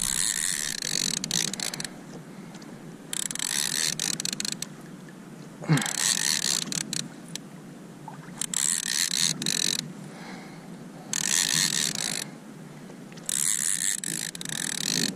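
Conventional saltwater fishing reel cranked in six spells of one to two seconds each, about every two and a half seconds, its gears giving a fast whirring rattle as line is retrieved between lifts of the rod. A sharp knock about six seconds in is the loudest sound.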